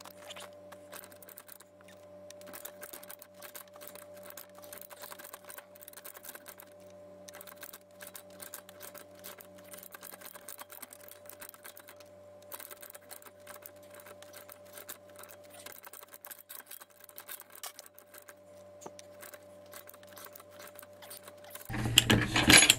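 Ratchet handle and die head of a cheap HFS TAR-100 hand pipe threader cutting thread on black iron pipe, heard sped up: a quiet, dense run of rapid clicks over a steady faint hum.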